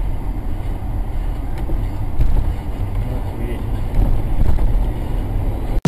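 A vehicle's steady low rumble and road noise while driving.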